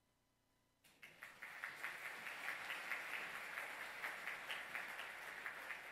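Near silence, then about a second in an audience starts applauding, many hands clapping steadily and tapering off near the end.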